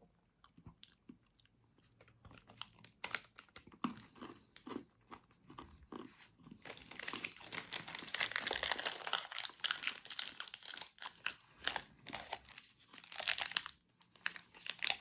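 Close-up chewing and crunching of a Feastables MrBeast Crunch bar, milk chocolate with crisped rice. It begins with a few scattered crunches and grows into dense, steady crunching from about halfway through.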